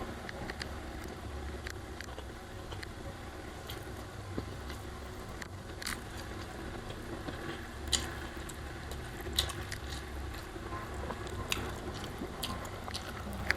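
A person eating a Padang rice meal: chewing and biting, with scattered short clicks over a steady low hum.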